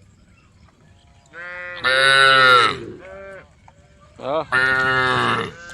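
Cows mooing: two long calls, the first starting about a second and a half in, the second just past four seconds.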